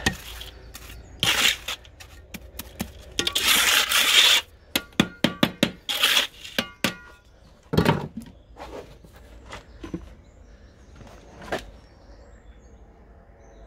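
Steel trowel scraping through damp sand and quicklime mix inside a galvanised metal dustbin, with sharp metallic clinks ringing off the bin's side; a dull thump about eight seconds in, then quieter scattered knocks.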